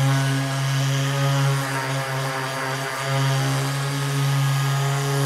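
Handheld power sander running steadily, abrading scratches out of a plastic boat hull. Its hum sags briefly near the middle, then picks up again.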